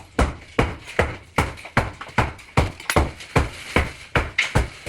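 Hammer blows on wood, a steady run of sharp knocks about two and a half a second, each with a short ring.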